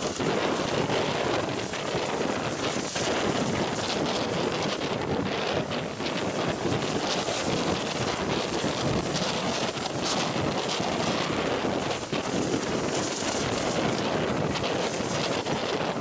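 Wind buffeting the microphone over a steady rush of heavy storm surf breaking against and over a stone harbour breakwater, with no separate crashes standing out.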